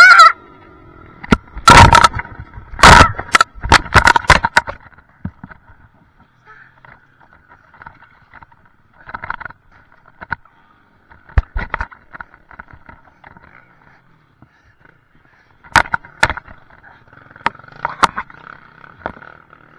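A run of loud knocks and clattering, heaviest in the first few seconds and then scattered, with a faint steady high whine underneath.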